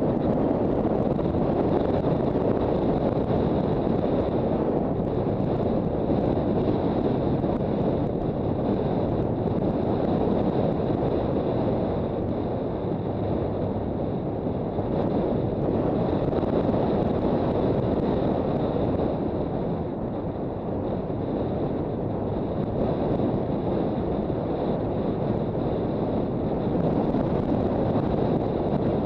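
Steady wind rush over the microphone of a Honda CB400 Super Bold'or motorcycle under way, with engine and road noise blended underneath.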